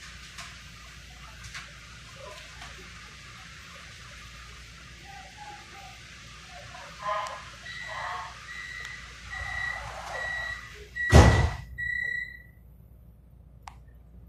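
Subway train's door-closing warning: a series of high beeps, about two a second, starting about eight seconds in, then the doors shut with a loud thump about three seconds later. A steady low hum of the standing train runs underneath.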